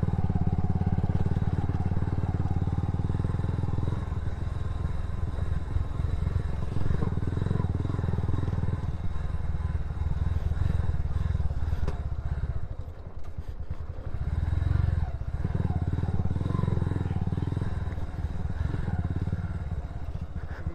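Motorcycle engine running under way, its low firing pulses steady; about twelve seconds in it eases off and quietens briefly, then pulls again.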